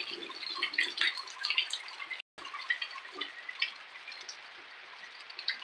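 Heavy rain falling and dripping close by, a steady wash with many individual drops splashing. The sound cuts out completely for a moment about two seconds in.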